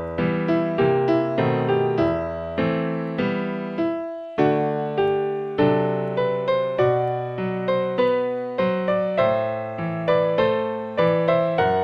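Piano music: notes and chords struck at a steady pace, each fading away, with a brief break about four seconds in.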